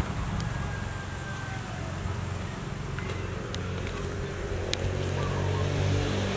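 A motor engine running steadily with a low hum, growing a little louder near the end, with a few sharp light clicks.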